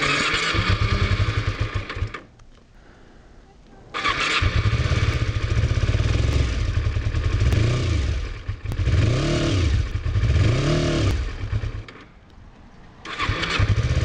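Kawasaki Ninja 250R's parallel-twin engine running under way. The throttle is opened and closed, so the pitch rises and falls several times in quick succession past the middle. It goes quiet briefly about two seconds in and again near the end.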